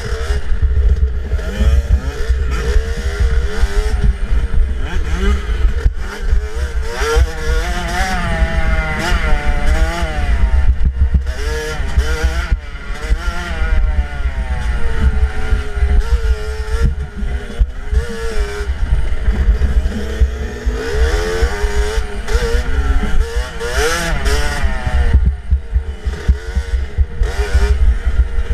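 65cc two-stroke dirt bike engine revving up and down over and over as it rides a rough trail, with heavy low rumble from wind and bumps on the helmet-mounted microphone and rattling knocks from the bike.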